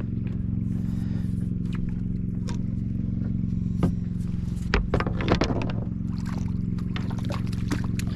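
A diesel trawler's engine running steadily with an even low hum. Sharp knocks are heard on deck, with a short burst of clatter about five seconds in.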